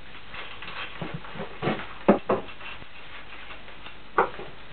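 Short, irregular metal clinks and knocks from hand tools and fittings being handled on a milling machine during assembly, about half a dozen strikes, the loudest about two seconds in.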